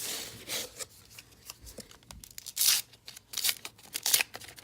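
A baseball card pack's wrapper tearing and crinkling as it is ripped open by hand, in several short, sharp bursts of noise.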